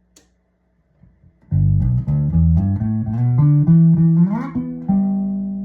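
1977 Guild Starfire II electric bass played fingerstyle on its middle pickup position: after about a second and a half of quiet, a short run of plucked notes with a slide up, then a held note that rings and slowly fades.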